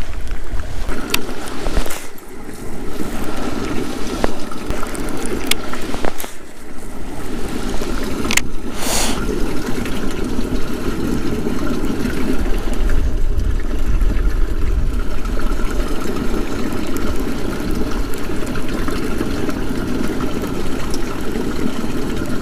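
Wind buffeting the microphone outdoors, a steady rumbling hiss, with a few short clicks and a brief rushing sound about nine seconds in.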